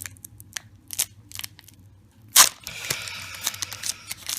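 Foil booster-pack wrapper and cards being handled: a few light clicks, one sharp snap about two and a half seconds in, then crinkling of the wrapper.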